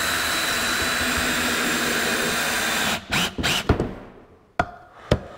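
Cordless drill driving a decking screw into a pre-drilled wooden board, the motor running steadily for about three seconds and then stopping suddenly. A few short clicks and knocks follow as the screw seats.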